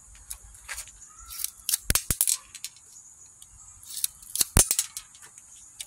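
Daisy Buffalo Bill lever-action BB gun being worked with the muzzle pointed down: sharp metallic clicks and rattles from the hammer and lever as BBs are shaken out. They come in two clusters about two and a half seconds apart, each with one louder knock.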